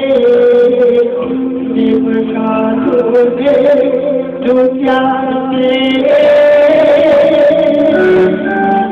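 A woman singing a hymn of praise into a microphone, her voice amplified through a sound system, with a long held note a little past the middle.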